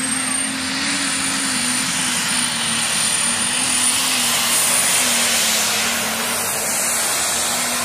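Diesel pulling tractor running at full power as it drags a weight-transfer sled, with a steady high turbo whistle over the loud engine note.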